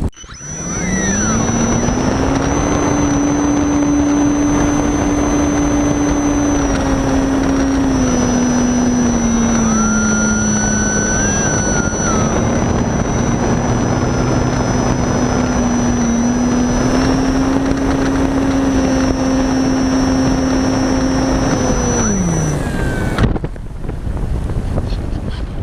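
Reichard Blizzard model glider's motor heard from a camera on board: it spools up just after the start and runs steadily under power, with a high whine above it, pitch shifting slightly, then winds down and stops near the end. Only airflow hiss over the airframe is left as the model glides.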